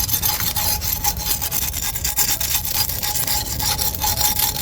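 Rapid, repeated scraping strokes on the charred skin of a fire-roasted iguana, stripping off the burnt skin and scales.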